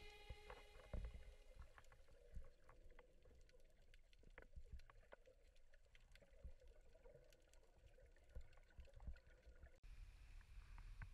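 Faint underwater crackling and ticking: scattered sharp clicks, several a second, picked up by a camera under water at a reef. About ten seconds in it switches abruptly to a low, steady rumble of surface wind and water.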